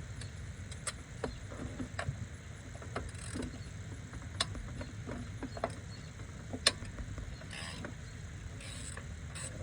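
Irregular metallic clicks and taps of a ratchet and socket being worked on engine bolts, with two sharper clicks about four and a half and seven seconds in.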